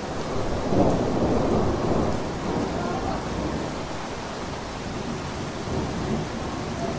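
Steady rain falling, with a low rumble of thunder that swells about a second in and fades away over the next couple of seconds.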